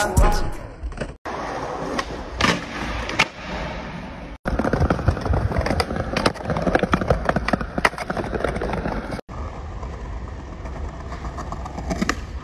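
Skateboard wheels rolling on concrete, with sharp clacks of the board popping and landing. The sound cuts out abruptly three times.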